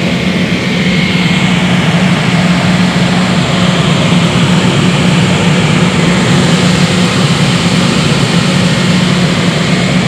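HVAC air-handling unit blower running: a loud, steady rush of moving air over a constant low hum.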